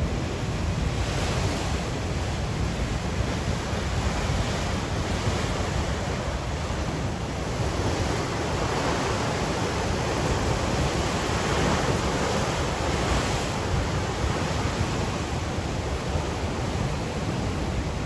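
Ocean surf: waves breaking and washing up a beach in a continuous rush, swelling a little in the middle.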